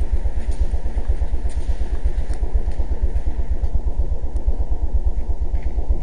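Steady low mechanical rumble with a fast flutter, like an engine running, with a few faint clicks over it.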